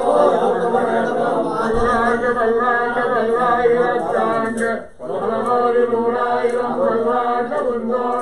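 Several male voices chanting mantras together in a steady, continuous recitation, with one short break for breath about five seconds in.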